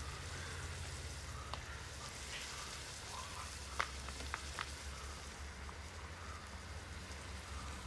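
Faint, steady sizzle of onions and tomatoes frying in the pan, over a low hum, with a few light clicks about four seconds in.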